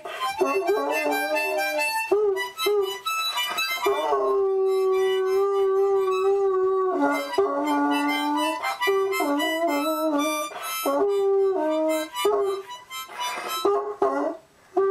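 A small child blowing chords on a harmonica while a large dog howls along in long, drawn-out notes.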